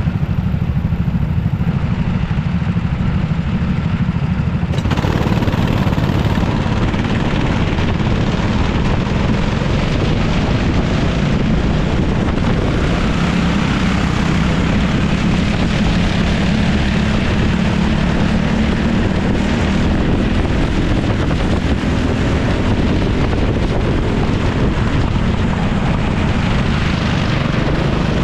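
Racing go-kart engines running hard from the driver's seat of a kart. About five seconds in the sound suddenly gets fuller and louder as the pack accelerates away from the grid, then holds at full throttle through the corners.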